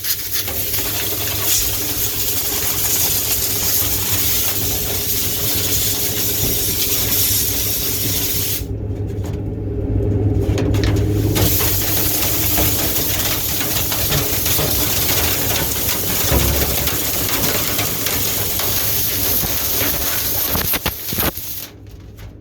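Steady loud rush of air with a low hum beneath it. The hiss briefly goes dull about nine seconds in, and the sound drops near the end.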